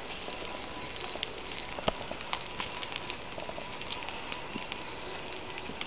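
Campfire embers crackling and meat sizzling on a wire grill over them: a steady hiss with scattered sharp pops.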